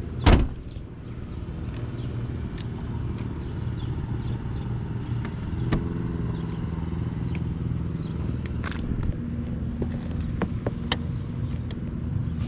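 1994 Pontiac Firebird Trans Am's LT1 V8 idling with a steady low rumble. A single sharp bang just after the start is the loudest sound.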